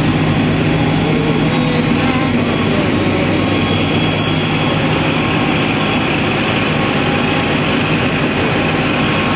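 Work boat's engine running steadily under way, a constant low drone, with water churning in the propeller wash behind the stern.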